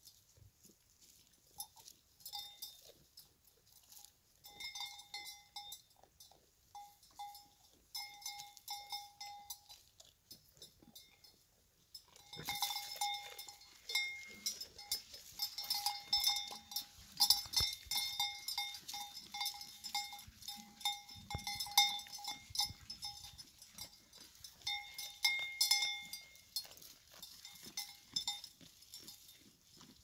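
Bells on grazing goats clinking on and off, short metallic ringing notes over and over. About twelve seconds in the ringing becomes louder and more frequent, with a rustling, crackling noise close by.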